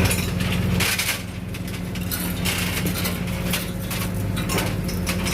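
An engine running steadily with a low hum, under repeated irregular metal clanks and rattles.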